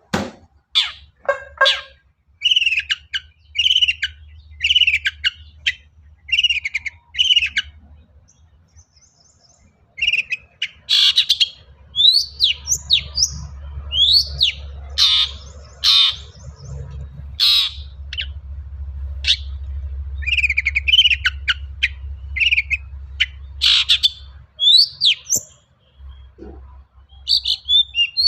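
Long-tailed shrike (cendet) singing: a run of harsh repeated notes about once a second, a short pause, then a fast, varied string of sweeping chirps and mimicked calls, over a low rumble.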